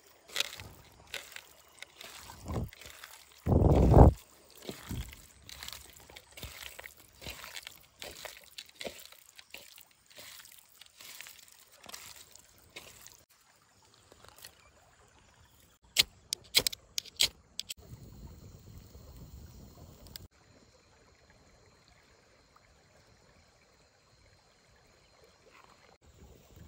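Water pouring and sloshing in irregular splashes, with one louder heavy splash or thump about four seconds in and a few sharp knocks around sixteen seconds; the sounds stop about twenty seconds in.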